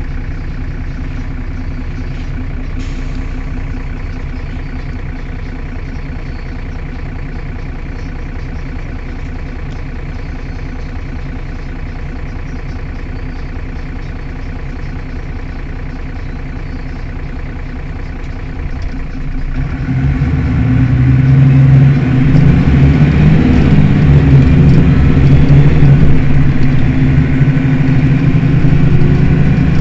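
Mercedes-Benz Citaro city bus's diesel engine idling steadily. About twenty seconds in, the engine speeds up and runs much louder as the bus pulls away.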